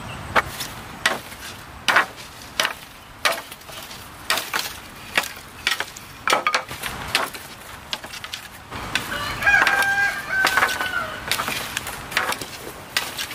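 A rooster crows once, about two-thirds of the way through, over a string of sharp knocks from a hooked machete chopping at bamboo.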